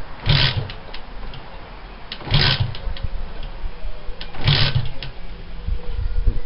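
Honda CG125's single-cylinder four-stroke engine being kick-started three times, about two seconds apart: each kick turns the engine over in a short burst of mechanical clatter, and it does not catch and run.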